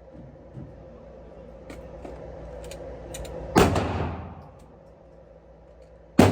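Two loud gunshots at a shooting range, about two and a half seconds apart, each ringing on in a long echoing tail. Fainter, sharper cracks of other shooters' fire come just before the first shot.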